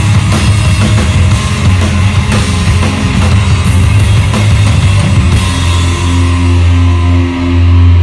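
Live heavy rock band playing loud: distorted electric guitars over a heavy low end and a pounding drum kit. The drumming thins out about five seconds in, leaving held, ringing guitar chords.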